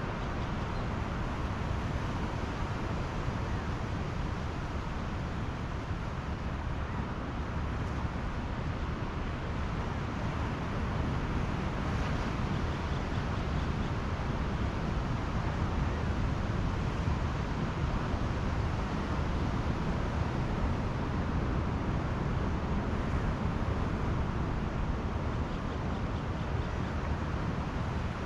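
Pacific Ocean surf washing onto the beach, a steady wash of noise that swells a little in the middle, with wind rumbling on the microphone.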